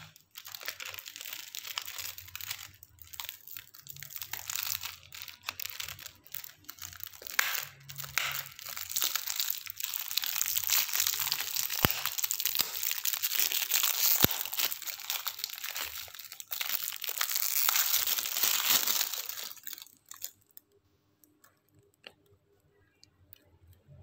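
Crinkling and rustling of wrapping being handled close by, densest in the middle and stopping about four seconds before the end.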